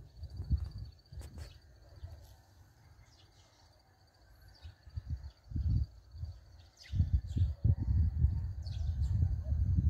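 Wind buffeting the microphone in irregular gusts, strongest from about seven seconds in, over a steady high insect trill and a few short bird chirps.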